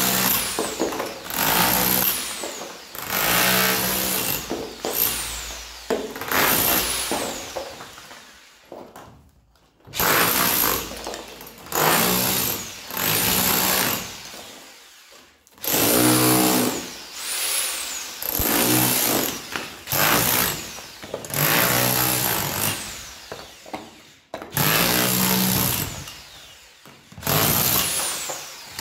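TOPSHAK TS-HD1 electric rotary hammer with a chisel bit chipping out a hollow clay brick wall. It runs in repeated bursts of a second or two, with brief pauses between.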